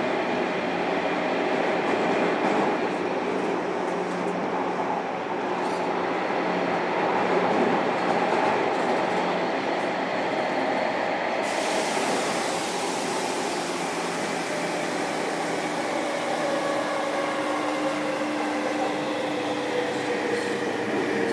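Running noise inside a JR Kyushu 305 series electric train's motor car: a steady rumble of wheels on rail with whining motor and inverter tones. About halfway through the hiss suddenly grows brighter, and in the last few seconds the tones fall slowly in pitch.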